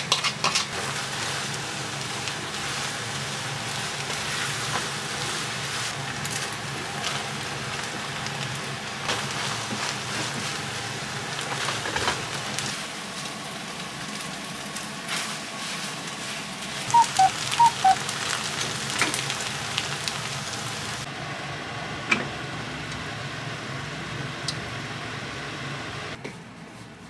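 Diced chicken breast and green peppers sizzling in a hot frying pan as they are stir-fried, with a louder sizzle as seasoning is poured in at the start and a spatula scraping and knocking against the pan. About two-thirds of the way in come three short, sharp, high sounds; the sizzling drops away near the end.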